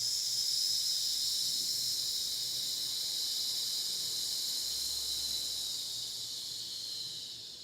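A person slowly exhaling a long, steady "sss" hiss through the teeth: the lung-healing sound of Chinese medicine, used here to ease grief. It fades out near the end.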